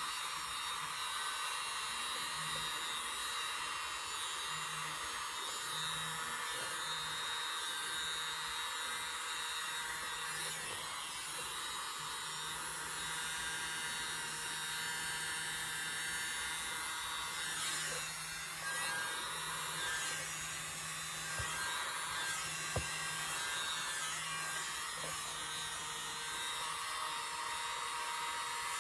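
Miniature battery-powered leaf blower running steadily, a constant airy hiss with a faint motor hum that comes and goes, blowing wet acrylic paint outward into flower petals. A small click about 23 seconds in.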